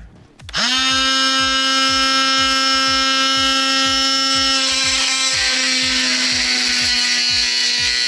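A Hart 20 V cordless oscillating multi-tool switches on about half a second in and runs steadily at speed setting 4 with a high buzzing whine. From about halfway through, the blade bites into the hard plastic casing of a transmission control computer, adding a rasping hiss over the whine.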